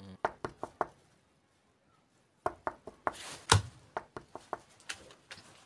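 Knocking on a door: four quick raps, then after a pause of about two seconds a longer, irregular run of knocks and taps.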